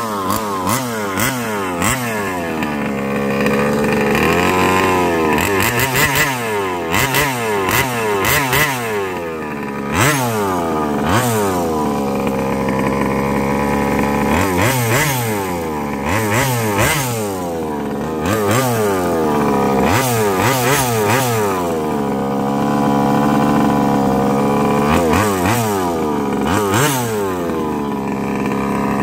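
30cc two-stroke gas engine of a Baja 5T 1/5-scale RC truck geared 19/55, driven hard: it revs up and backs off over and over. Each burst of throttle is a rising then falling engine note.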